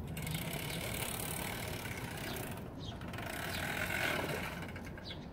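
Mini bike's small engine running at idle, with mechanical clatter.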